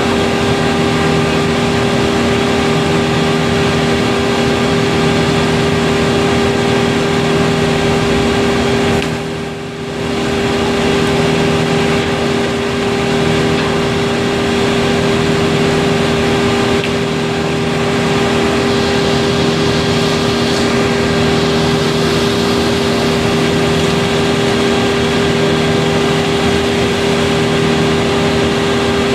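A large engine runs steadily at a constant speed, with a fixed hum and a low tone that pulses on and off about every second and a half. It drops briefly in level about a third of the way in.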